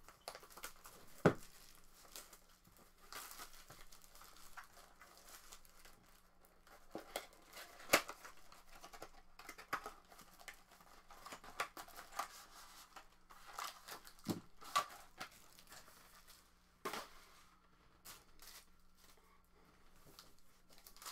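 A sealed box of 2019 Origins football cards and its packs being opened by hand: wrappers tearing and crinkling, with scattered sharp clicks and taps as the packs and cards are handled.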